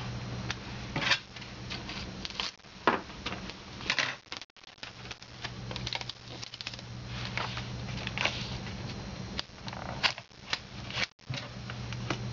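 Clear adhesive book tape and its backing being handled, peeled and pressed onto a book spine: irregular crackling and rustling with a few sharper clicks, over a steady low hum.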